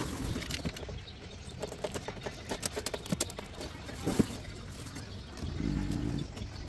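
Scattered light clicks and knocks, with a short low hum of under a second about five and a half seconds in.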